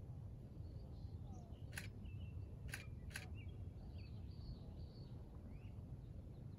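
Steady low outdoor rumble with faint, short bird chirps scattered throughout, and three sharp clicks close together about two to three seconds in.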